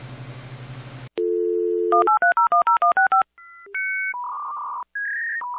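Telephone sound effect: a dial tone starts about a second in, followed by a quick run of about ten touch-tone (DTMF) dialing beeps and then a string of shorter electronic phone tones. Before it, a steady low electrical hum.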